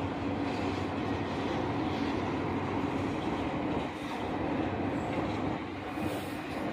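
Freight train boxcars rolling past, a steady, continuous noise of wheels on the rails.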